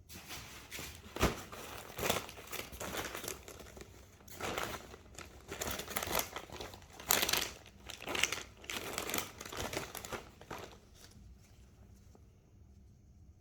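Crinkling and rustling handling noise with many sharp crackles and snaps, which stops about eleven seconds in.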